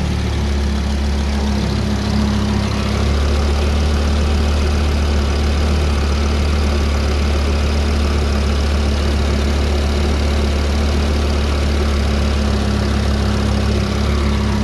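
Freshly rebuilt Audi RS3 DAZA 2.5-litre turbocharged five-cylinder engine idling steadily. The idle grows slightly louder about two to three seconds in.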